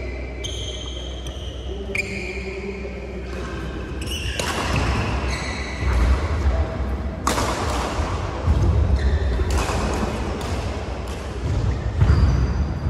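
Badminton shoes squeaking on a synthetic court mat in short high chirps, with sharp racket hits on the shuttlecock and a low hum in a large echoing hall.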